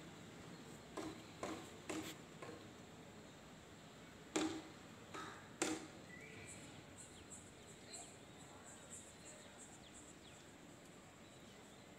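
A series of sharp taps and knocks from a peacock's feet stepping on a corrugated cement roof sheet; the two loudest land about four and a half and five and a half seconds in. Faint short high chirps follow in the second half.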